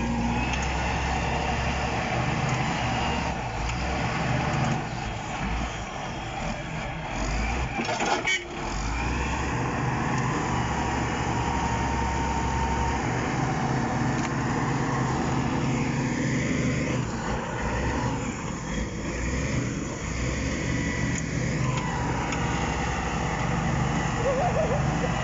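Crawler bulldozer's diesel engine working under load as the blade shoves a large uprooted tree up a dirt slope: a steady low drone, with occasional high squeals.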